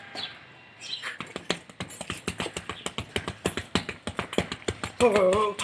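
Punches landing on a hanging heavy punching bag: a quick, uneven run of slaps and thuds, about five a second, starting about a second in. A short voice near the end.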